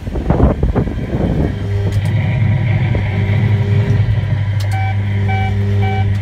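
Kiddie ride dumper truck's speaker playing a recorded truck engine running steadily, with a few knocks at the start. About three-quarters of the way through a reversing beeper sound effect starts, beeping about twice a second.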